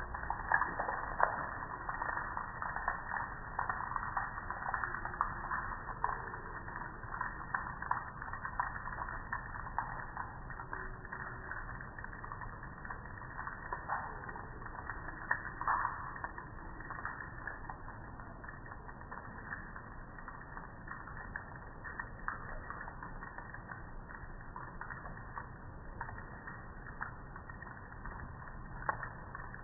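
Water and soap suds spattering and crackling on a wet, foamed metal Char-Broil grill lid: many small irregular clicks and pops, busier in the first half and thinning out later.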